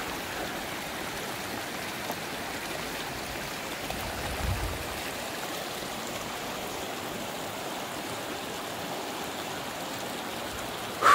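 Mountain stream rushing over rocks: a steady, even rush of water. A brief low thump comes about halfway through.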